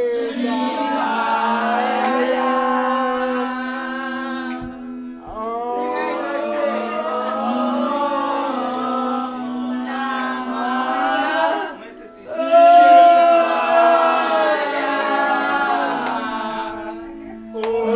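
A person singing over a music backing track, karaoke-style, in long phrases with short breaks about five, twelve and seventeen seconds in.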